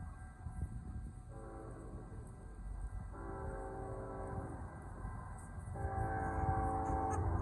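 Canadian National diesel locomotive's multi-note air horn sounding a series of long blasts, the last held on past the end. Under the horn is a low rumble that grows louder as the train approaches.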